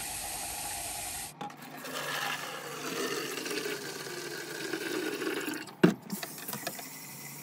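Tap water running briefly into the sink, then diluted bleach poured from a plastic measuring cup into a 1-gallon plastic water jug, the pour sliding down in pitch. A sharp knock near six seconds, then a quieter hiss.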